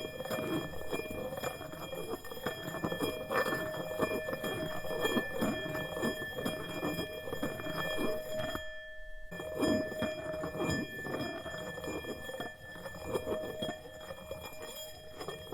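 Tibetan singing bowl sounding continuously, holding several steady ringing tones over a fluttering undertone. The sound cuts out completely for about half a second near the middle, then carries on.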